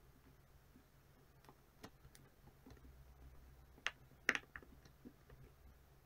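Silicone pop-it fidget toy bubbles being pressed by fingers: soft, irregular popping clicks, two louder pops about four seconds in, over a faint low hum.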